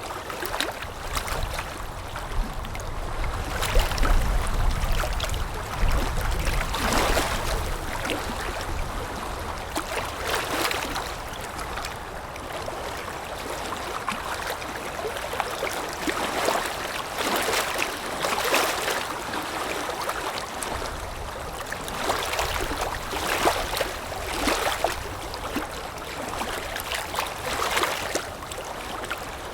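Small wind-driven waves lapping against a shore, irregular splashes and gurgles every second or two over a steady wash of water, with a low wind rumble near the start.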